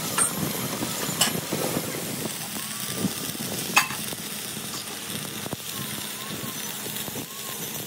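Electric arc welding on a steel wheel rim: a steady crackling sizzle from the arc, broken by a few sharp pops, the loudest about four seconds in.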